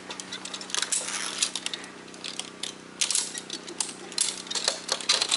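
Zip-line hardware being handled by hand: metal carabiners and the trolley pulley clicking and clinking against each other and the cable in quick irregular taps.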